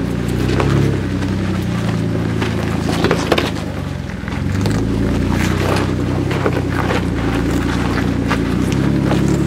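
Jeep Wrangler engine running at low, steady crawling speed as the Jeep climbs over boulders. Sharp cracks and knocks from rock under the tyres come through, the loudest a little after three seconds in.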